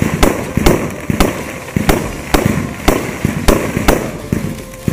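Aerial fireworks display: a rapid string of shell bursts and bangs, about two a second, each trailing off briefly.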